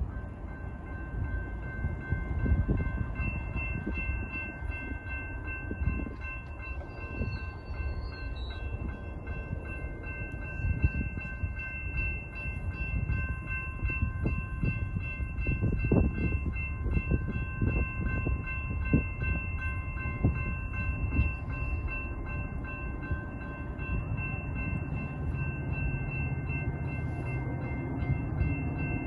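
Railroad grade-crossing warning bells ringing continuously, heard as a steady multi-note ring, likely set off by an approaching Metra train. Wind buffets the microphone with a low, gusty rumble throughout.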